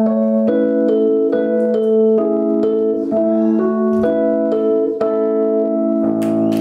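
Live band music in which a keyboard plays a run of notes, a new one about every half second, over a held low note. About six seconds in, a fuller, lower chord comes in and is sustained as the song ends.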